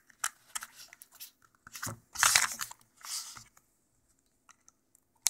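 Handling noise as cables and plugs are fitted together on a Raspberry Pi wearable computer rig: scattered rustles, scrapes and light clicks, louder bursts of rustling about two and three seconds in, then a quiet stretch and a sharp click at the end.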